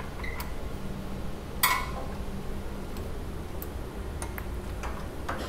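Sparse light metallic clicks and ticks of hands and a tool working screws on an aluminium cryostat vacuum shield, with one louder ringing clink about a second and a half in, over a steady low hum.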